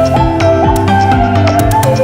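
Background music: a lead melody that slides up into each note, over held bass notes and a steady ticking beat.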